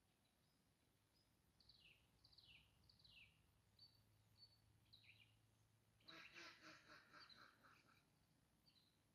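Faint songbird calls: three quick down-slurred chirps, a few short high notes, then about six seconds in a rapid rasping run of notes lasting under two seconds.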